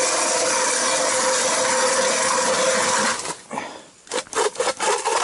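Hand ice auger drilling a hole through river ice: the blades give a steady grinding scrape, which stops suddenly about three seconds in and is followed by a few sharp knocks.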